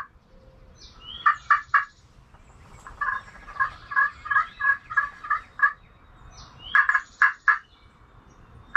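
Turkey yelps in three series: a short run of about three notes, a longer run of about ten evenly spaced notes, then about four more.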